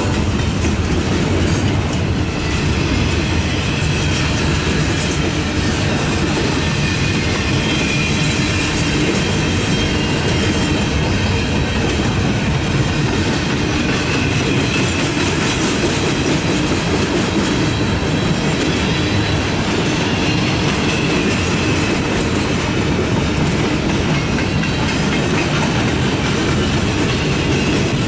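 Intermodal freight train's double-stack well cars rolling past at steady speed: continuous rumble and clatter of steel wheels on the rails, with a faint high wheel squeal in the middle.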